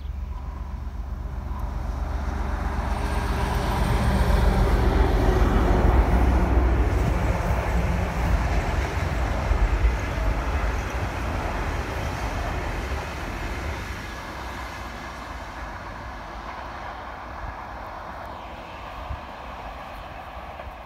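Diesel locomotive hauling a passenger train past: a deep, pulsing engine rumble and wheel noise build up, are loudest about four to six seconds in, then slowly fade as the train draws away.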